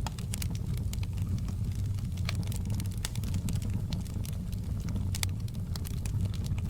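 Wood fire in a fireplace crackling, with frequent irregular sharp pops and snaps over a steady low rumble.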